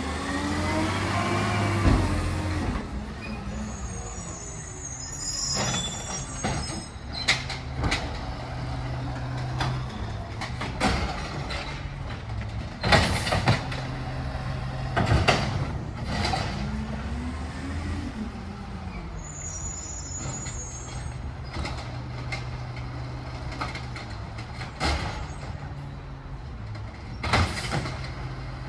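Recycling truck working a pickup: the diesel engine runs steadily and revs up and down twice with a rising then falling whine, while sharp clanks and bangs of the bins and load repeat throughout. Short air hisses come twice, shortly after each rev.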